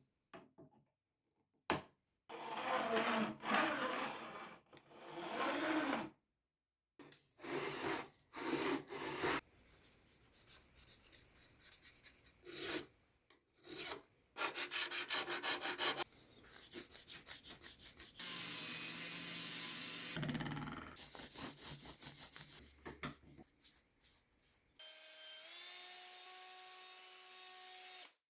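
Hand tools working frets and fretboard on a guitar neck during a re-fret, in short separate takes: files rasping in strokes, some in quick even runs, and sawing. Near the end a steady pitched whine lasts about three seconds.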